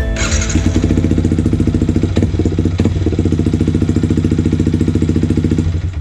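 Yamaha MT15's single-cylinder engine idling steadily through a replica SC Project full exhaust, with a fast, even exhaust pulse. The sound cuts off abruptly just before the end.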